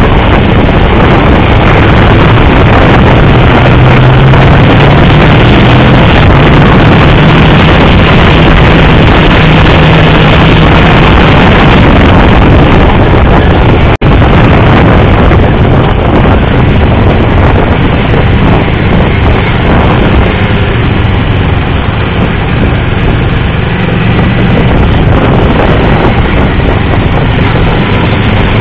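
Motorcycle at track speed heard from a bike-mounted camera: loud, constant wind rush over the microphone, with the bike's engine note shifting in pitch underneath. The sound drops out for a split second about halfway through.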